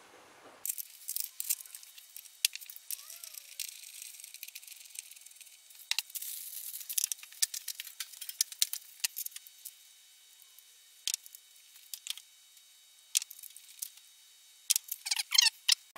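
Bolts being fitted by hand into a transfer case: a run of sharp, irregular metal clicks, taps and short rattles as steel bolts and tools knock against the case. The sound is thin and tinny, with no low end.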